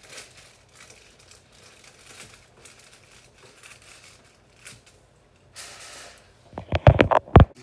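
Aluminium foil crinkling faintly as it is handled. Near the end comes a quick cluster of loud knocks and rustles, the sound of the camera being handled up close.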